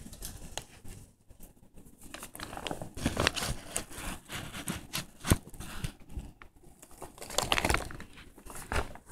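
Praying mantis chewing through a Dubia roach's shell: irregular small crunching and crackling sounds, with one sharper click about five seconds in.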